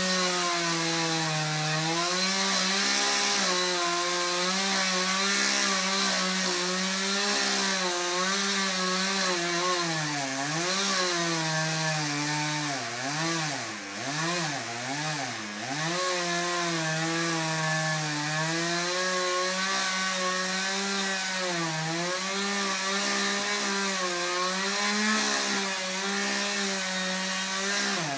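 Chainsaw running at high revs, cutting through a tree, its pitch sagging as the chain loads up in the wood. About halfway through, the revs swing down and up several times.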